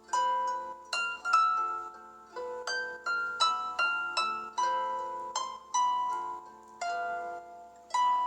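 A Samsung Galaxy Tab Active ringtone playing: a melody of short notes, each struck sharply and then ringing away, about two a second, over a low steady note.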